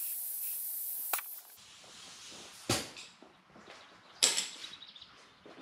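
Compressed air hissing steadily through an air chuck into a small ride-on mower tire's valve stem, fitted with a new valve core, stopping with a click about a second and a half in as the chuck comes off. Then a knock and a metallic clink with a short ring.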